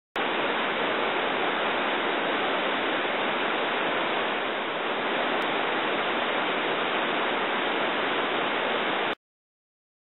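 Steady rushing noise of a tall waterfall and the river below it, cutting off suddenly about nine seconds in.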